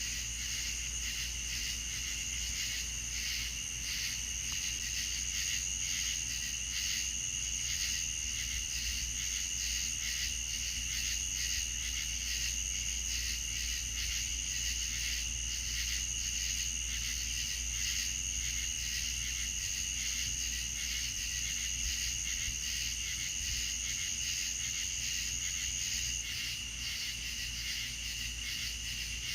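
Night insects, crickets, chirping in a dense chorus: a steady high trill over a rapidly pulsing lower chirp. The high trill cuts off near the end.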